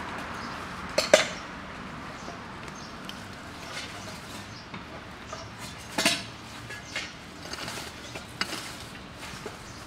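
Sharp metallic clinks of a metal hand tool striking the concrete footing of a fence post: two close together about a second in, another about six seconds in, and a few lighter taps between.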